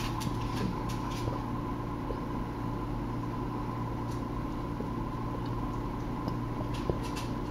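Steady machine hum in a small room, with a few faint light clicks.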